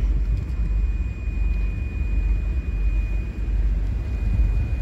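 Fairline motor cruiser running under way: a steady, uneven low rumble, with a faint thin high whine held throughout.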